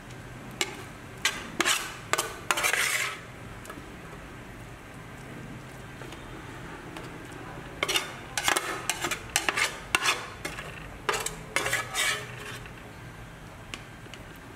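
Spatula scraping and clattering against a pan while stir-frying noodles, in two bouts of quick strokes: one near the start and a longer one from about halfway. A faint steady sizzle of frying runs underneath.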